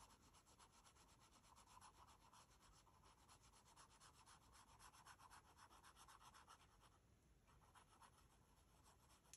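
Faint scratch of a 2B graphite pencil shading on sketchbook paper in quick short back-and-forth strokes, several a second, growing softer near the end.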